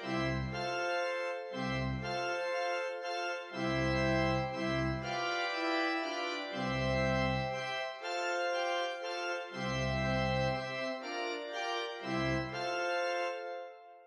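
Instrumental background music with sustained keyboard chords over separate low bass notes; it fades out near the end.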